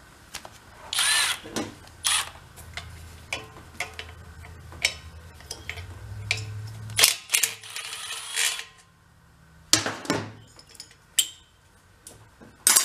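Milwaukee M12 Fuel cordless power tool running for about six seconds as it backs out the bolt that holds the mini bike's gas tank. Sharp clicks and metal clatter follow as the loosened tank and its cables are handled.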